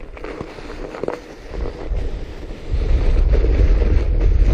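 Wind buffeting the microphone over the running noise of a fat bike rolling along a snowy trail. It is quieter at first and then becomes a loud, steady low rumble from about two-thirds of the way in.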